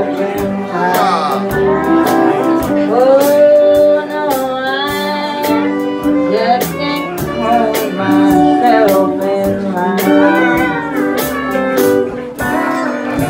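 Honky-tonk country band playing live: fiddle, acoustic and electric guitars and a drum kit keeping a steady beat, with a woman singing.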